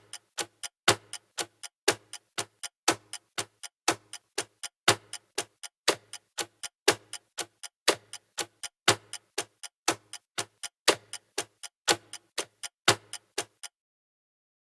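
Countdown-timer clock ticking sound effect: about four ticks a second, with a louder tick on each second. It stops about a second before the end.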